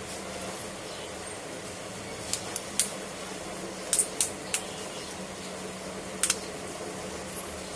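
Small sharp clicks and ticks of hand tools and plastic parts being handled while a ZTE Blade V40 Design smartphone is taken apart. About nine clicks come in a few scattered groups over a steady low hum.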